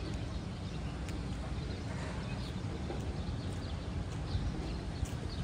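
Outdoor background: a steady low rumble with scattered light clicks and short, high chirps.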